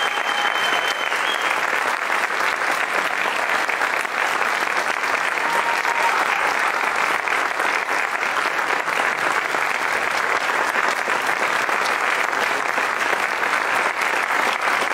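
Audience applauding steadily, a dense continuous clapping that holds at an even level throughout.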